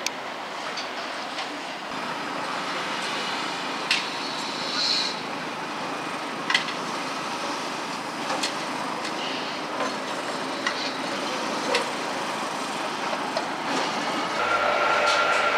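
Trams running on street tracks, heard from high above within the steady hum of city traffic, with scattered sharp clicks and knocks. Near the end the sound grows louder and a closer tram's steady whine comes in.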